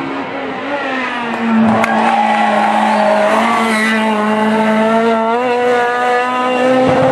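Renault Clio rally car's engine held at high revs. It gets louder about a second and a half in, holds a steady high note, then rises in pitch near the end.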